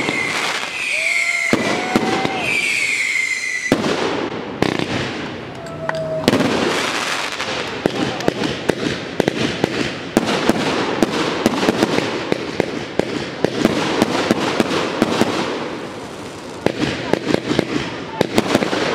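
Fireworks display: shrill whistles fall in pitch about once a second at first, then give way after about four seconds to a dense, continuous run of crackles and bangs.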